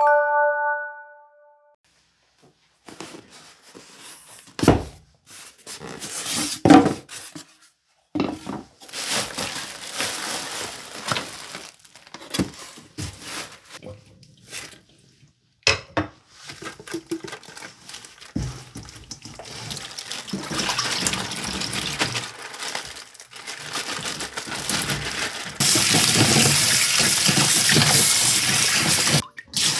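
A brief chime of a few tones, then water from a kitchen tap splashing into a sink with intermittent knocks and handling noises. In the last few seconds the tap runs steadily.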